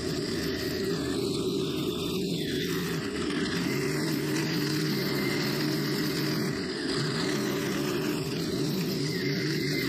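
Stihl FS90R string trimmer's four-stroke 4-MIX engine running steadily under load while its nylon line cuts grass, the engine note dipping slightly now and then.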